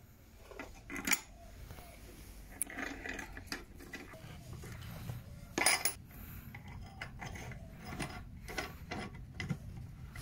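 Irregular metallic clinks and short scrapes as steel clamps and wedges are handled at the steel flask of a sand-casting mold, the loudest clink just under six seconds in and another about a second in.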